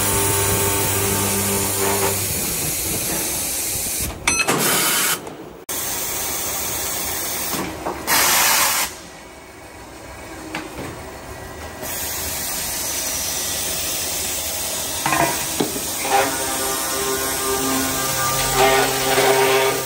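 High-speed CNC metal circular saw machine running and sawing a steel bar: a steady hiss over a low electrical hum, with abrupt breaks and a quieter stretch in the middle.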